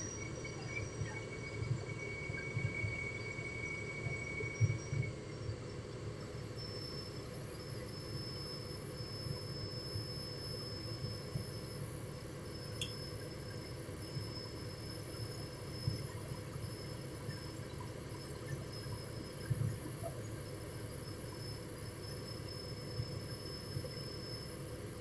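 Excavator diesel engine running steadily at low revs, a low rumble with small swells. Thin, steady high-pitched tones sound over it.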